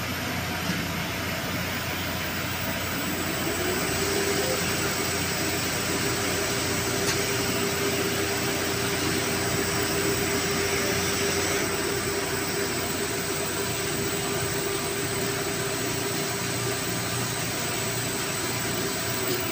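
Clarke diesel fire-pump engine running steadily, with a whine that rises about three seconds in and then holds.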